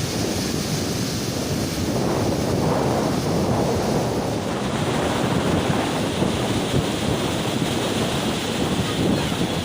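Waves washing onto the Gulf of Finland shore with wind buffeting the microphone: a steady, loud rushing noise that swells and dips.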